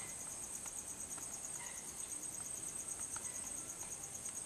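Steady high-pitched insect chirring with a fast pulse, with a few faint small clicks of plastic being handled.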